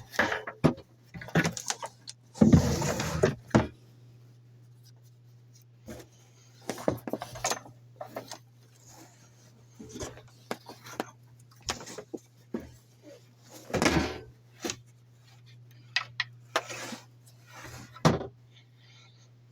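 Irregular knocks, rustles and clatters of objects being handled, the longest and loudest about three seconds in, over a steady low hum.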